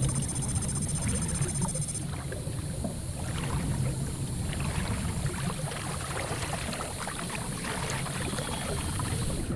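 Water rushing and splashing: a steady, even noise with a deep rumble and constant small crackles.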